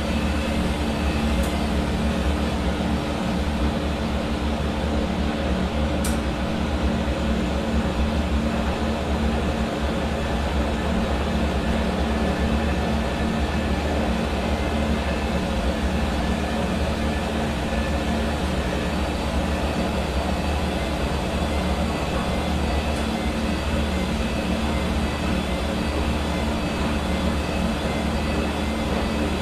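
Hair dryer running steadily: a constant blowing hiss of air with an even motor hum underneath.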